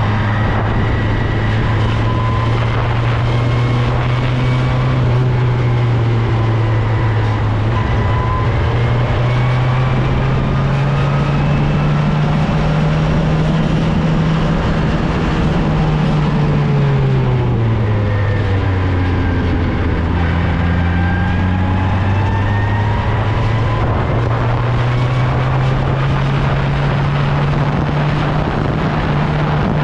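Engine of an open-wheel single-seat race car running at speed on track, heard onboard over wind and road noise. The engine note climbs slowly, drops away a little past the middle, then climbs again.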